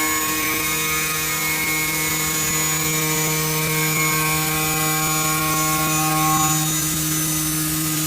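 CNC machine running: a steady motor whine made of several held tones over a noise bed, some of the tones shifting to new pitches a couple of times.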